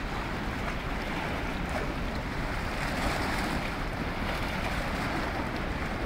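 Steady rushing noise of wind on the microphone over choppy river water, with a low rumble.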